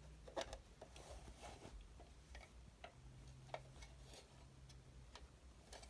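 Near silence: room tone with a faint low hum and a few faint scattered clicks.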